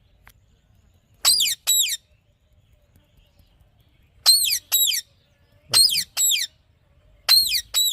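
Alexandrine parakeet giving shrill, high calls in quick runs of two or three, each call dropping in pitch, with short pauses between the runs.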